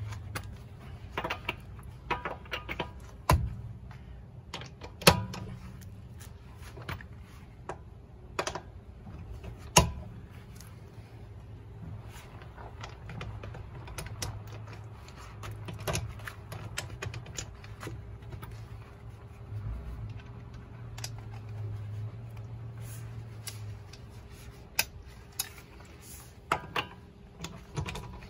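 Hand ratchet wrench clicking in short runs, with metal socket clinks, as it turns the wheel lug nuts on a Jeep Cherokee.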